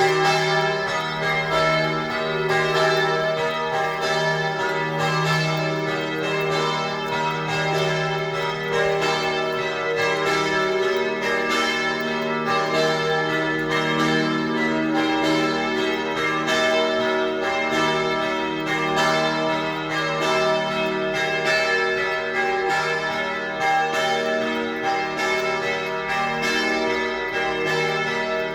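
Several church bells ringing together in a continuous peal, their strokes coming steadily and overlapping so the tones hang on one another.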